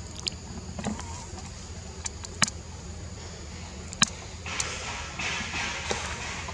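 Branches and thin stems knocked and snapped as a young monkey climbs, giving scattered sharp clicks, then a rustle of leaves for the last two seconds or so.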